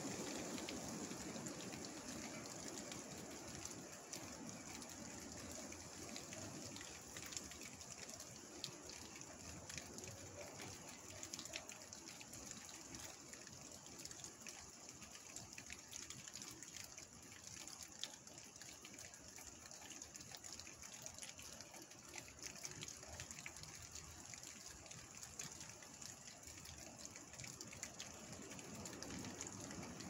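Steady rain falling through trees, with a louder rush of wind at the start that eases off over the first few seconds and swells again near the end.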